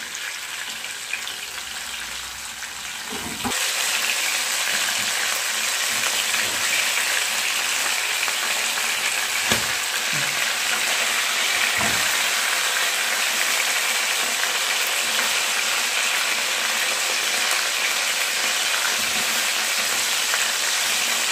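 Chicken pieces frying in hot oil in a non-stick frying pan: a steady sizzle that gets louder about three and a half seconds in, with a few light knocks of a spatula against the pan as the pieces are turned.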